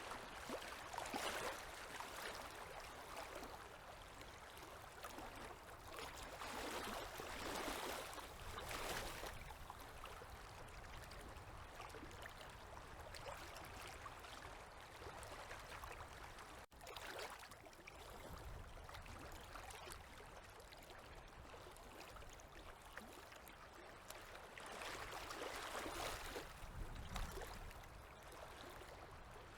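Small river waves lapping at the shore: a faint, steady wash of water that swells three times, with a momentary dropout about halfway.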